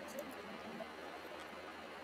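Quiet room tone with a few faint soft clicks in the first second, as a spoon scoops into a soft avocado smoothie bowl.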